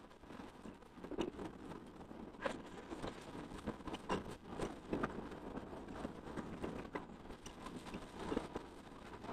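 Wind and road noise from riding a bicycle on a concrete road, with irregular knocks and rattles as it rolls over the slab joints.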